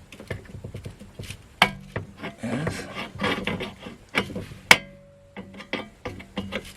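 Clicks, taps and scraping as hands and tools work at the heater-control cables and their clips on a 1966 Mustang's heater box, trying to free them. A sharp metallic click with a brief ring comes about two-thirds of the way through.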